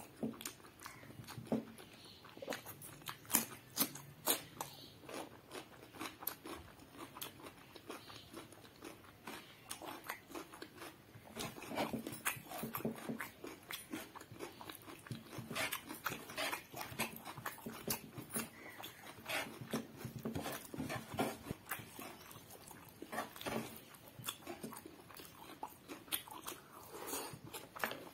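Close-up eating sounds: a person chewing with wet mouth clicks and lip smacking, with crunches of raw cucumber slices, many short irregular clicks throughout.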